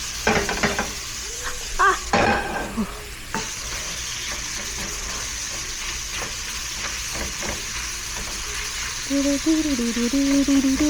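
Meat stir-frying in a pan: a steady sizzle, with the clicks of a utensil stirring against the pan in the first few seconds. Someone hums near the end.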